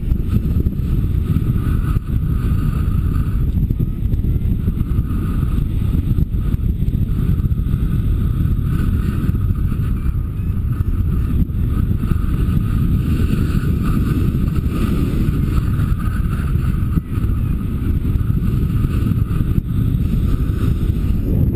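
Airflow buffeting the microphone of a camera mounted on a flying paraglider: a steady, loud low rumble of wind, with a fainter higher rush that comes and goes.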